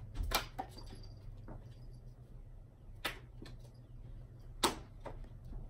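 Playing cards being thrown one after another, heard as a few short, sharp snaps and slaps as they are flicked and strike things. The loudest comes about three-quarters of the way through.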